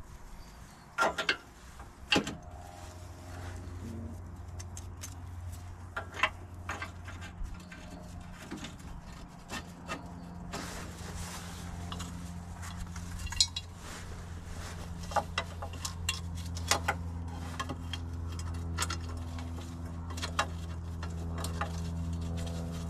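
Scattered metallic clinks and clicks of hand tools and car parts being handled, over a steady low hum.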